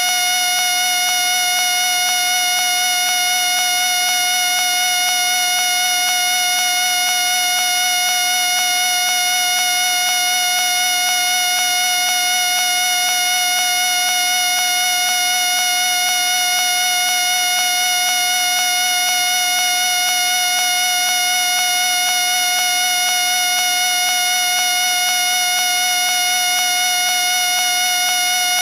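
A whistle sounding one steady, unbroken tone that does not waver or stop.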